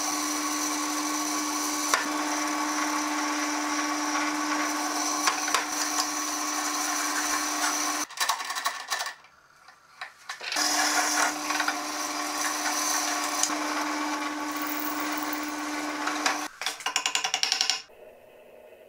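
Benchtop drill press motor running steadily as a twist drill bit bores a hole into a burlap micarta knife-handle block. It stops for about two seconds around the middle, starts again, and ends in a quick rattling chatter before cutting off near the end.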